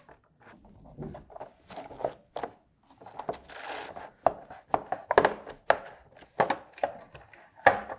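Plastic case of a Simulant Amiga mechanical keyboard being pried open with a plastic card run along the seam: a short scrape, then a series of sharp clicks and snaps as the lid's clips release, coming thicker and louder in the second half.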